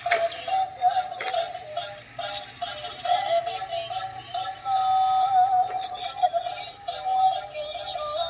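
A battery-operated dancing princess doll toy playing a simple electronic tune through its small speaker, a single melody of short stepping notes, with a couple of sharp clicks near the start.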